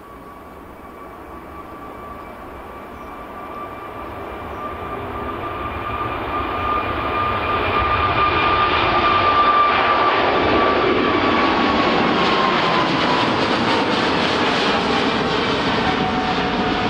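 Jet airliner passing low overhead, its engine noise building steadily for about eight seconds, then holding loud. A high engine whine slides down in pitch as the plane goes by.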